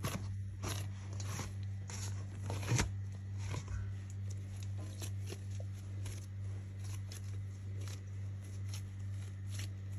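Hands kneading dough in a metal bowl: soft, irregular squishes and slaps of the dough, the loudest about three seconds in, over a steady low hum.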